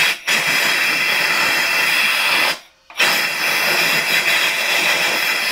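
Compressed air hissing from an airline blow gun into a lawnmower engine's spark plug hole, in two long blasts with a short break about two and a half seconds in. It is blowing out liquid, taken for water, from the cylinder.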